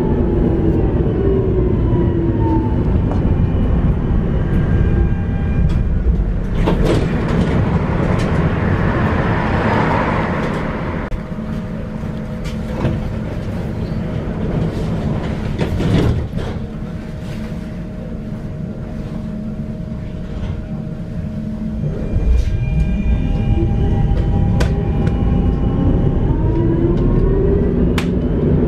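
Tram ride heard from on board: the electric traction motors whine falling in pitch as the tram slows, then a stretch of hissing as it comes to rest. After a quieter spell with a steady hum and a few clicks, the whine rises again about three quarters of the way through as the tram pulls away, over a constant rolling rumble.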